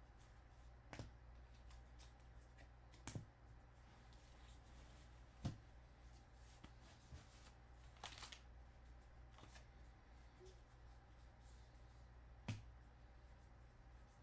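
Faint handling of baseball trading cards: cards slid and flicked one behind another through a stack, with a few soft clicks and taps a few seconds apart, over a low steady hum.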